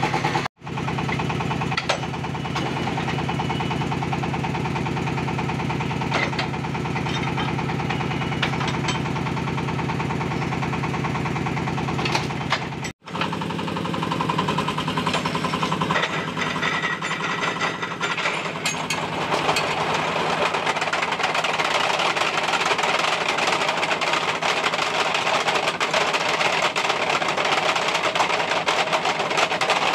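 Concrete pole moulding machine running: a steady low hum under a dense, fast metallic rattle from the steel mould and its wheels. The rattle gets brighter and busier about halfway through. The sound drops out for an instant about half a second in and again about thirteen seconds in.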